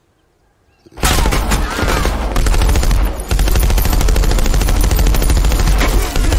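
Near silence for about a second, then sudden, sustained rapid fire from a bipod-mounted machine gun, with a brief break about halfway through.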